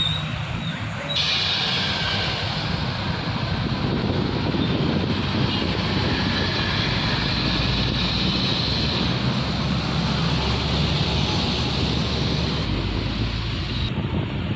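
Steady roadside traffic noise of passing vehicles, heavier in the low end through the middle.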